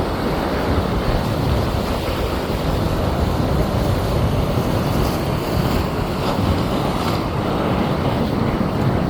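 Wind buffeting the microphone over steady ocean surf: an even, unbroken rumbling rush with no distinct events.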